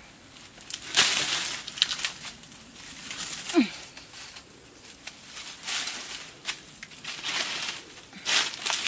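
Dry fallen banana leaves crunching and crackling in irregular bursts as they are trodden on and brushed. A short falling cry sounds once, about three and a half seconds in.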